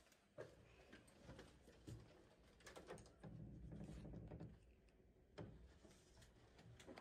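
Near silence, with faint scattered clicks and soft knocks as a hotel room door is pushed open and walked through.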